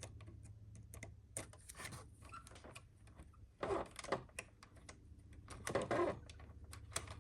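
Small metal clicks and taps of pliers gripping and turning a broken screw and its nut, irregular, with louder clusters of clicking about four and six seconds in.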